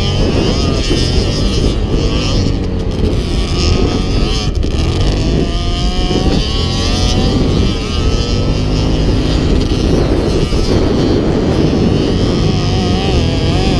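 Off-road vehicle engines running and revving, their pitch rising and falling.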